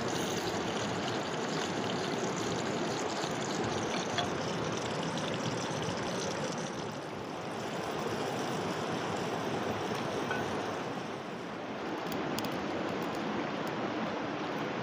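River water flowing steadily, an even rushing noise, with one small knock about four seconds in.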